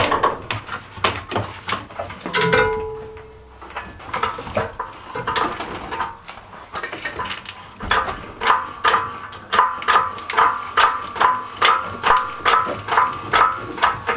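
Hydraulic workshop engine crane being pumped by hand to raise a hoisted car engine: a short creaking click with each stroke, about two strokes a second through the second half. Before that, scattered clicks and knocks of metal and chain as the hanging engine is shifted.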